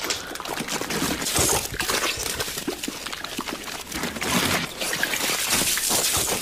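A loud, continuous rush of gushing, splashing liquid with crashes and breaking sounds mixed in: a staged sound effect of a flood of liquid bursting through a room.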